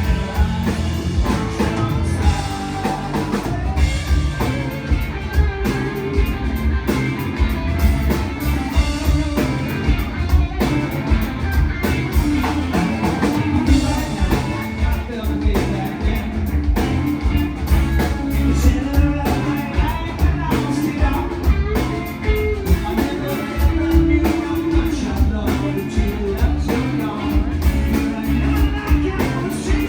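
Rock band playing live, with drum kit, bass and electric guitar under a singer's vocal line.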